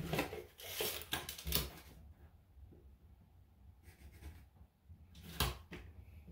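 Gloved hands working a tape measure against the tub's drain pipe and fitting: soft rubbing and scraping with a few sharp clicks in the first second and a half, a near-quiet stretch, then one louder click about five and a half seconds in.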